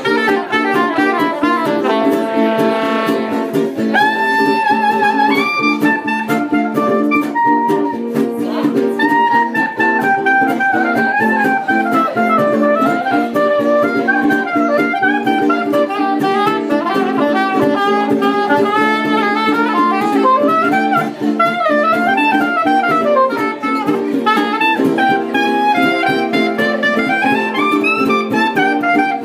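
Soprano saxophone playing a jazzy melody of held notes and winding runs over steady strummed chords on a small acoustic string instrument.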